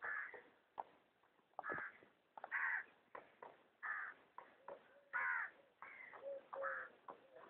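Ostrich chicks calling: a run of short calls, roughly one a second, with a few lower, drawn-out notes about six seconds in.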